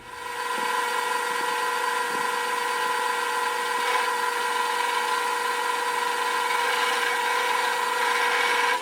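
Electric drill running at a steady speed with a high whine, boring a 7/64-inch hole through a bushing for a cotter pin.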